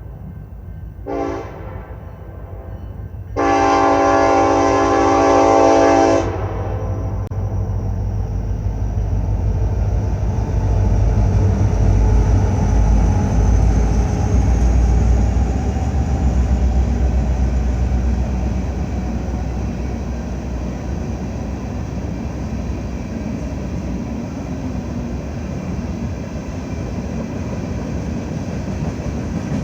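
BNSF freight locomotive's air horn: a short blast about a second in, then a long blast of nearly three seconds. The diesel locomotives then pass with a heavy low rumble that swells and eases into the steady running of the train's cars on the rails.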